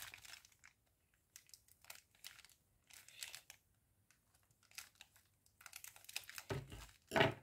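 Plastic packaging crinkling in short, scattered rustles as a parcel sealed with sticky tape is cut and pulled open, with a louder rustle and a low bump near the end.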